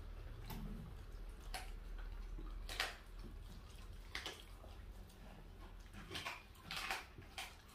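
Welsh corgi chewing and tearing at a chunk of raw meat: scattered wet, crunchy bites and tugs, a few louder ones about three seconds in and again near the end.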